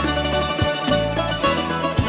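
Greek instrumental music led by a plucked bouzouki, with a steady rhythmic bass pulse underneath.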